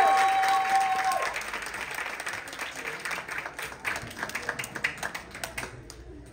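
Audience applause, the clapping thinning out and dying away over about six seconds. A few held pitched tones carry on for the first second before stopping.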